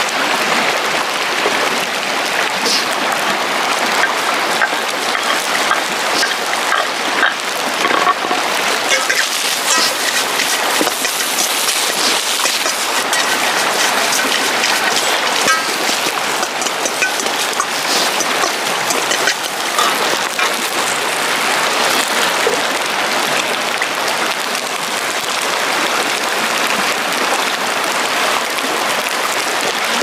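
Fried rice sizzling in a wok over a campfire as it is stirred with a metal ladle, a steady rain-like hiss broken by scattered clicks and scrapes of the ladle against the pan.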